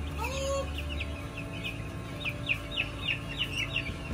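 Week-old broiler chicks peeping: a stream of short, high, falling peeps, several a second.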